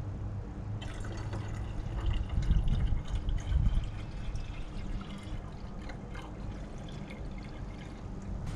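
Water pouring from a large plastic bottle into a car's empty cooling system, starting about a second in and heaviest between about two and four seconds in.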